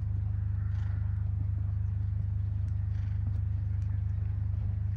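A vehicle engine running steadily close by: an even, low hum that does not change.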